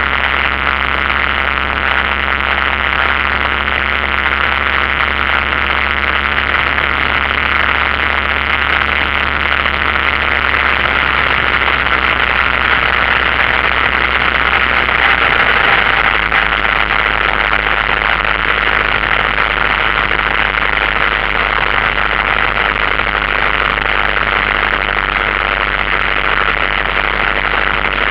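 Single-engine light aircraft's piston engine and propeller droning steadily, heard from inside the cockpit, with a strong steady hiss over it. The low engine note drops slightly about halfway through.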